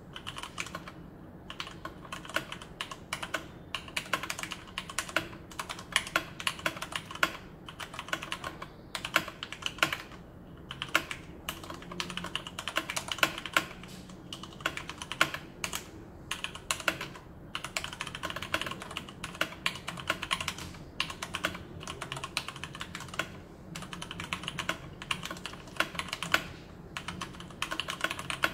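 Continuous typing on a Leopold FC660M 60% mechanical keyboard with Cherry MX Brown switches: a dense run of key clacks with a few brief pauses.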